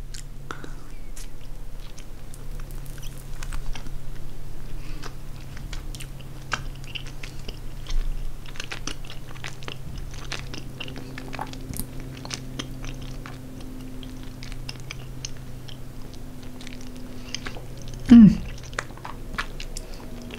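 Close-up chewing and biting of soft Haribo Vulcano F!ZZ gummy candy: small wet mouth clicks and squishes throughout. A short, loud vocal sound comes near the end.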